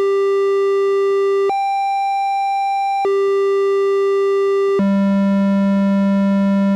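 A Casio VL-1's "Fantasy" waveform, a square-wave-based tone, holding one unbroken note while its pitch jumps by octaves: up an octave about a second and a half in, back down near the middle, and down another octave about two-thirds of the way through.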